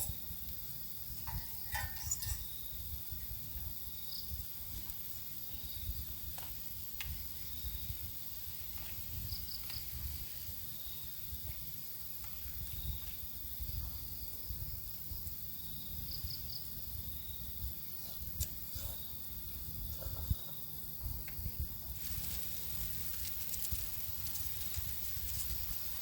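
Forest insects trilling steadily, with a few short, higher chirps and scattered soft clicks over a low rumble. A faint hiss comes in near the end.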